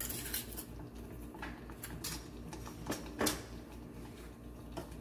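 A spoon clinking and scraping against a small bowl as salt is spooned into a pan of curry: a handful of separate clinks, the loudest about three seconds in. A low steady hum runs underneath.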